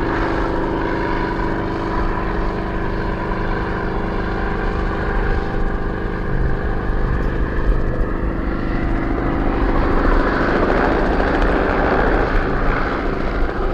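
Bristol Sycamore helicopter in flight: its Alvis Leonides radial piston engine and rotor give a steady drone, growing louder and rougher about ten seconds in.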